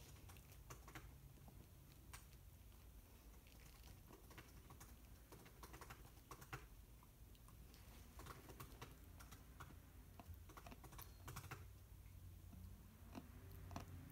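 Faint, irregular clicks of a puppy's teeth gnawing on a chew stick.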